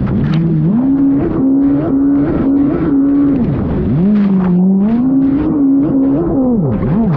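Race personal watercraft (jet ski) engine at high revs, its pitch dropping and climbing again as the throttle is worked, most of all in a long dip about four seconds in. Water slaps and spray hit the hull over it.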